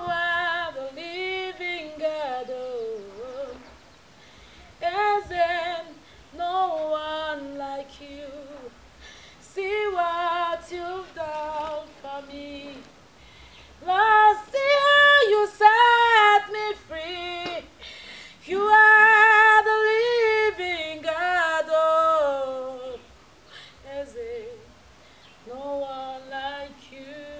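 A woman singing unaccompanied in short phrases with brief pauses between them, her voice wavering with vibrato on the held notes.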